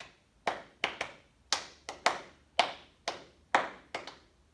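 A man clapping his hands in a short, snappy rhythmic pattern repeated over and over, one clap followed by two quicker ones about once a second, to show a steady Baroque rhythm that sets a happy mood.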